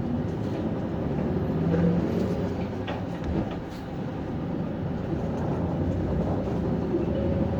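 City bus diesel engine pulling away from a stop, heard from inside the passenger cabin, with a steady low running note that builds over the first two seconds and dips briefly about three seconds in.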